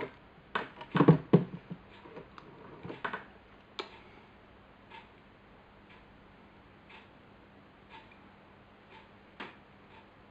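Small clicks and taps of a precision screwdriver and a tiny screw against a plastic flash head, a cluster in the first second or two, then sparse faint ticks.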